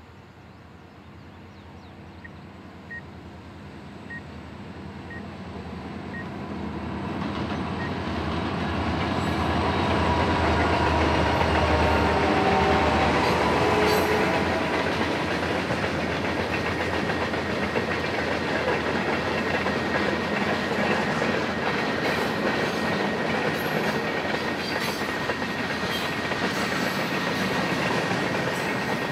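Reading & Northern freight train led by two diesel locomotives approaching, the engine rumble growing louder until the locomotives pass about twelve seconds in. Then comes the steady rolling noise of hopper cars and boxcars going by, with wheels clicking over the rails.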